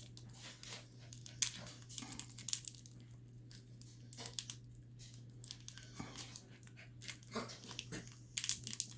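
Small glitter packet crinkling and crackling in irregular bursts of snaps and clicks as it is bitten and pulled at with teeth to tear it open.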